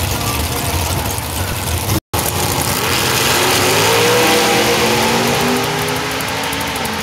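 Drag-racing car's engine rumbling low at the start line; after a brief dropout about two seconds in, it goes to full throttle and launches. The note rises as the car accelerates away down the strip, then eases as it gets farther off.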